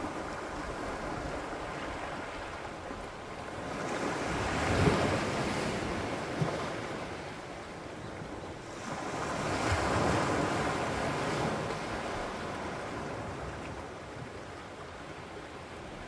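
Sea waves surging against a rocky shore. Two larger waves break and wash in, about five and about ten seconds in, over a steady hiss of surf.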